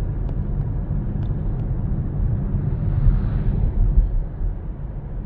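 Steady low road rumble of a moving car heard from inside the cabin, with a soft passing whoosh about three seconds in.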